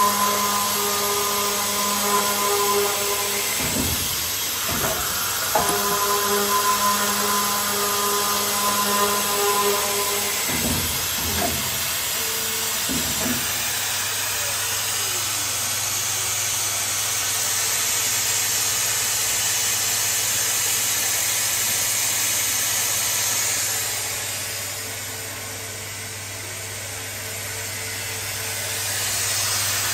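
High-speed metal-cutting circular saw machine working on thick-wall tube: a whine of several steady tones over a hiss, breaking off briefly twice in the first half. After that mostly a steady hiss and hum remain, briefly fainter a little before the end.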